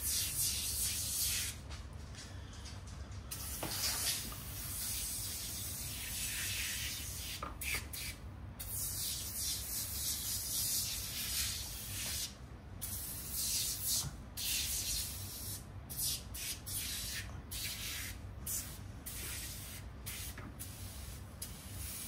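Aerosol can of Super Clean degreaser spraying into a plastic tackle box: long hisses of a few seconds each with short breaks, then shorter bursts later on.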